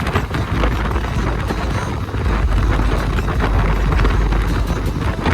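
Steady rush of wind over the microphone on a moving Bajaj Pulsar motorcycle, with engine and road noise underneath.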